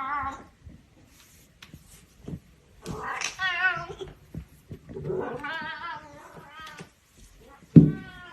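A cat yowling: a series of drawn-out calls that waver in pitch, the last one short and the loudest.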